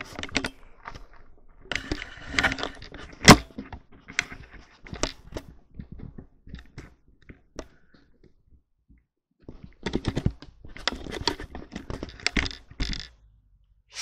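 Handling noise as the recording device is picked up and moved about: a run of clicks, knocks and scrapes, the loudest a sharp knock about three seconds in, then a quieter stretch and a dense burst of clatter from about ten to thirteen seconds.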